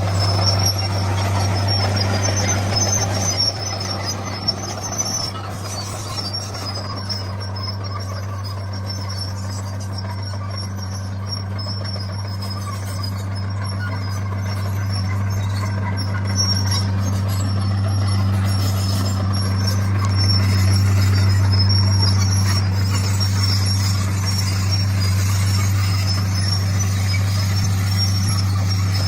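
D41 bulldozer's diesel engine running steadily under work with a constant low drone. It eases somewhat in the first third, then grows louder again about two-thirds of the way in.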